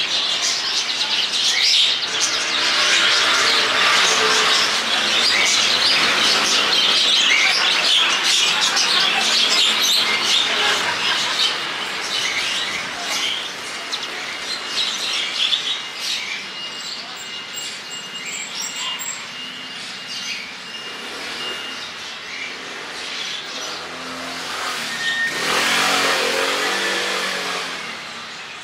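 A crowd of small birds chirping busily and continuously, loudest over the first half. A motor vehicle passes near the end.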